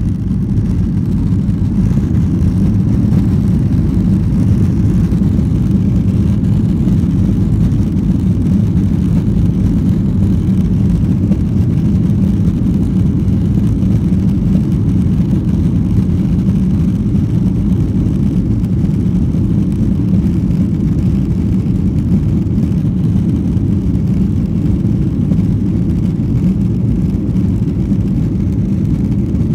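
Steady low cabin rumble of a Boeing 737-900 taxiing, its CFM56-7B turbofans at low taxi thrust, heard from inside the cabin.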